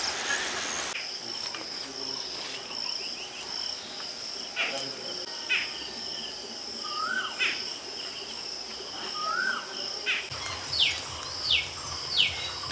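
Insects keep up a steady, high-pitched trill while birds call over it. Sharp downward chirps come about once a second, in a quicker run near the end, with a couple of short rising calls in the middle.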